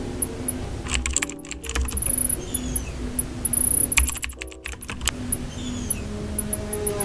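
Quick runs of small clicks and crinkles from stationery purchases and their packaging being handled, in two dense clusters about a second in and about four seconds in, over soft background music.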